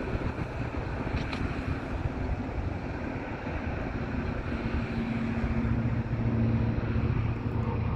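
Distant engine noise: a steady low rumble with a hum that grows somewhat louder about halfway through.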